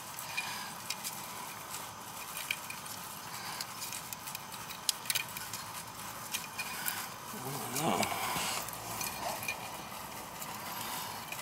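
Small irregular clicks and taps of a crimp connector being pushed and worked onto an air-conditioner compressor's electrical terminal by gloved hands, over a steady hiss. A short muttered voice about eight seconds in.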